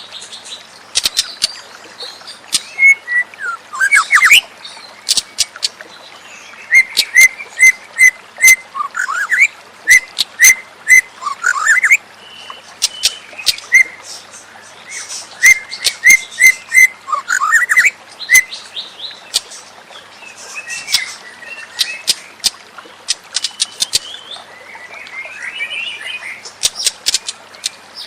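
White-rumped shama (murai batu) singing in phrases of quick repeated whistled notes, rising slurs and sharp clicking notes, with short pauses between phrases.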